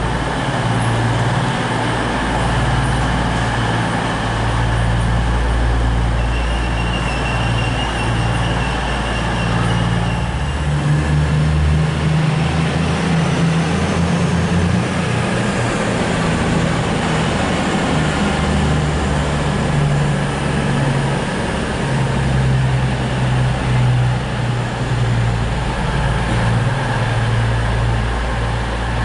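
East Midlands Railway intercity diesel train's engines running as the train moves slowly along the platform: a steady low drone that shifts in pitch about ten seconds in. A faint high whine sounds for a few seconds before that.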